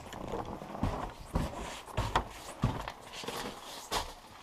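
Footsteps of a person walking over packed snow and in through a cabin doorway: a string of uneven thumps, roughly two a second.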